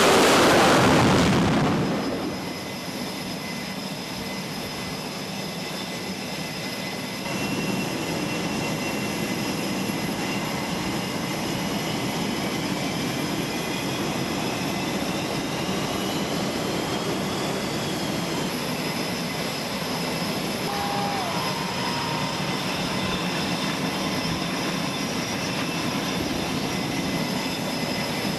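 Steady drone of aircraft engines with several high whining tones, one of them slowly rising and then falling; a loud rush of noise dies away about two seconds in.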